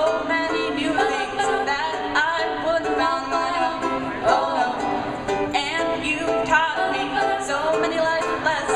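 Voices singing a song, several parts together with no break.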